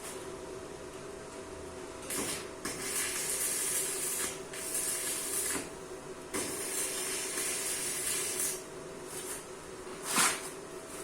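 Air spray gun hissing in several bursts of one to two seconds each, the paint spray-finishing of a dough mixer machine, with a short loud blast near the end. A steady machine hum with a fixed pitch runs underneath.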